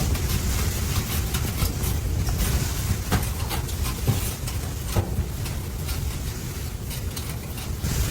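Blizzard wind rumbling on the microphone, with scattered sharp ticks throughout.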